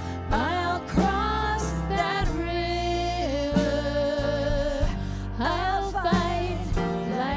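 Church worship music: a singing voice slides up into long, wavering held notes over steady bass notes and light percussion.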